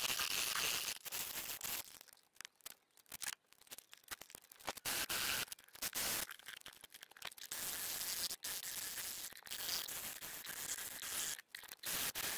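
Shinto Japanese saw rasp being worked across a wooden handle: uneven strokes of coarse, scratchy rasping, broken by short gaps.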